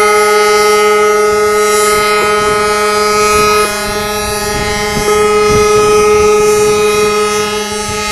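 Ships' horns blowing together in long, loud, steady blasts: held tones of several pitches sounding at once, with a faint rising siren whoop about two to three seconds in.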